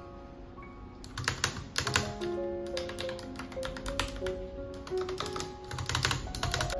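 Clicky key presses on a Logitech POP Keys mechanical keyboard, typed in quick runs starting about a second in, over soft piano music.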